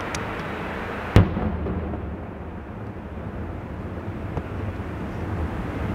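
A single sharp firework bang about a second in, followed by a few faint, distant pops. Under it runs a steady low background rumble.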